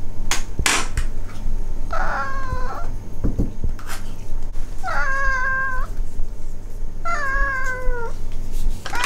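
Ragdoll cats meowing for treats: three drawn-out meows of about a second each, a couple of seconds apart, the pitch sagging slightly toward the end of each. Two sharp clicks come in the first second.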